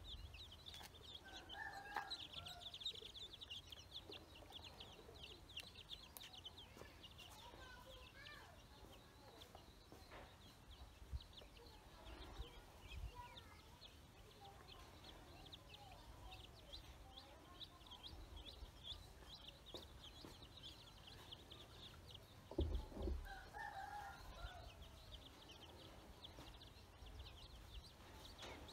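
Ducklings peeping without a break, a chorus of rapid high peeps. Lower chicken calls join about two seconds in and again toward the end.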